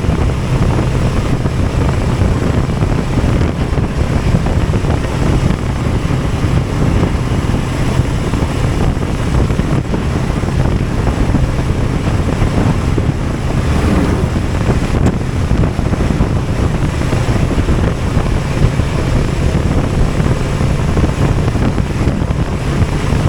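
Heavy, steady wind rush on the microphone from travelling at road speed, over a low vehicle drone.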